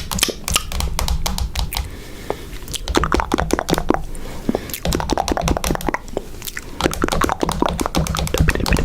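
Rapid, irregular clicking and tapping, many small clicks a second, with short lulls about two seconds in and again just before six seconds.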